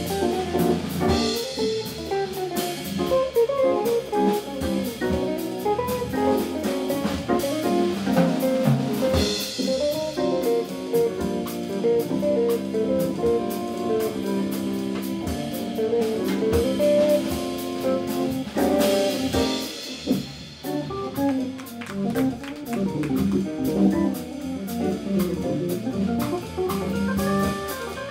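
Live jazz from a guitar, organ and drum kit trio: electric guitar playing a running single-note line over the drums, with a few cymbal crashes.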